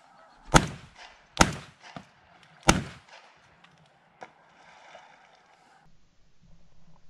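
Three shotgun shots fired in quick succession at ducks on the wing, the first two under a second apart and the third about a second later; the third shot brings down a duck.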